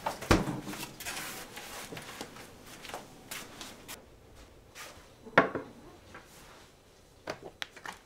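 Food being set out on a wooden table: a heavy thud just after the start, cloth rustling, a sharp knock about five seconds in, and a few light clicks near the end as a small tin can is put down on the wood.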